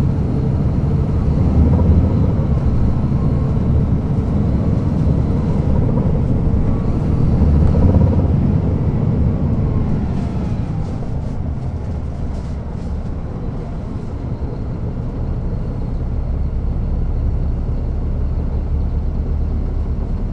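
Caterpillar C13 six-cylinder diesel of a NABI 416.15 transit bus, heard from the rear of the cabin while the bus is driven. The engine swells louder about two seconds in and again about eight seconds in, eases off, then settles to a steady low run near the end.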